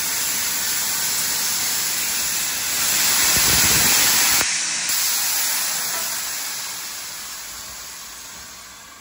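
Loud rushing hiss of a passing train. It swells to its loudest about four seconds in, breaks off abruptly, then fades away.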